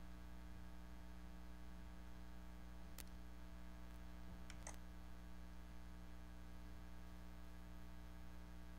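Computer mouse clicks: a single click about three seconds in, then a quick pair about a second and a half later, over a steady low electrical hum.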